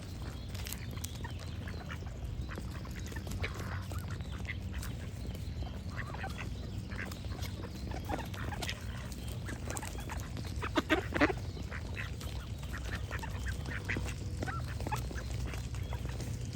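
Ducks quacking over background birdsong, with a steady low background noise throughout; the loudest quacks come in a quick run about eleven seconds in.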